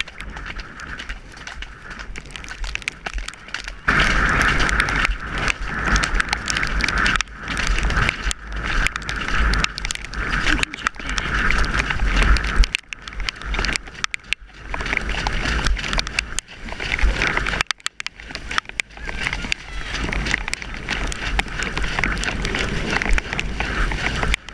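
Wind rushing over a helmet-mounted camera microphone while a ridden horse moves fast along a wet, muddy track, with its hooves knocking and splashing through the mud. The rushing noise gets much louder about four seconds in and stays loud.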